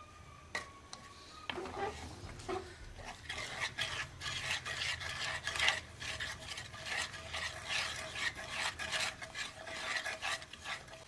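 Wooden spatula stirring and scraping a wet, milky moong dal mixture around a pan, in repeated strokes that come sparsely at first and then quickly and steadily from about three seconds in.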